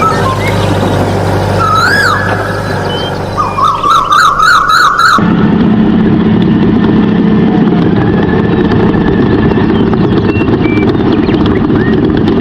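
Steady motor hum with short up-and-down glides and, from about three and a half seconds in, a warbling siren-like tone; about five seconds in it changes abruptly to a steady rumbling, engine-like noise.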